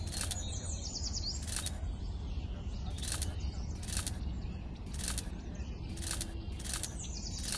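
Sharp, crisp clicks about once a second as red bean seeds are dropped one by one into sand furrows. A few faint bird chirps and a low steady rumble sit underneath.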